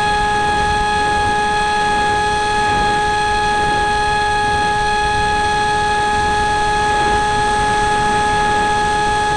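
Electric motor and propeller of a Flying Wings Slipstream RC flying wing, heard from a camera on the airframe: a loud, steady whine held at one pitch, with air rushing over the microphone.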